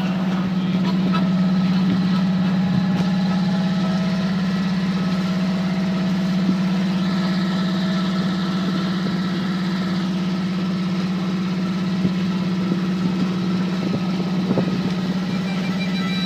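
Sailboat's inboard engine running steadily at one speed, a constant hum. Faint harmonica notes sound over it in the first few seconds.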